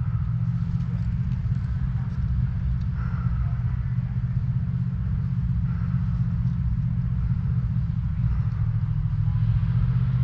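An engine running steadily: a continuous low rumble.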